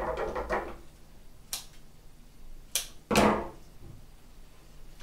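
Flower stems and sprigs of gypsophila rustling and swishing as they are picked up and handled, with a couple of sharp clicks; the loudest swish comes about three seconds in.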